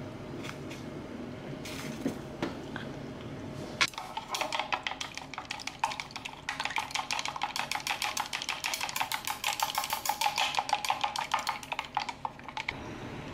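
Chopsticks beating egg in a plastic measuring cup: a fast, even run of clicking strokes against the plastic, starting about four seconds in and stopping near the end. Before it, a steady low hiss from a pot of water boiling on a gas burner.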